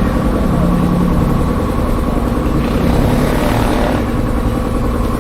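Motorbike engine running steadily under a constant heavy low rumble.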